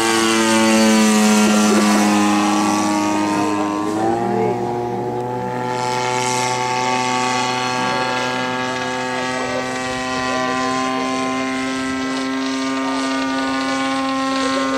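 A 50cc two-stroke gasoline engine and propeller on a radio-controlled model airplane in flight. Its note sinks slowly for about four seconds, then rises sharply and holds steady as the plane flies on.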